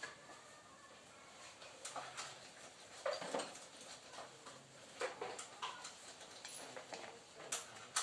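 Irregular light clicks and knocks, like hand tools handled against metal parts in a motorbike workshop, several strikes with short quiet gaps between.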